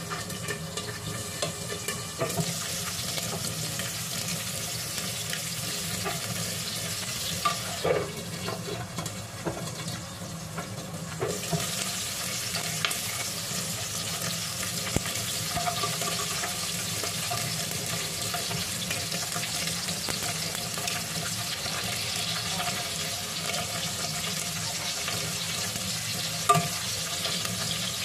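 Bell pepper and eggplant pieces topped with minced fish sizzling steadily as they fry in oil in a nonstick pan. The sizzle grows brighter about eleven seconds in, as the glass lid is lifted, with a few sharp clinks of the lid.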